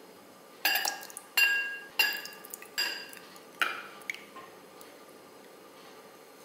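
A metal ladle clinking against the rim of a glass tumbler while ladling thick kheer into it: five sharp clinks over about three seconds, each ringing briefly, then a lighter tap.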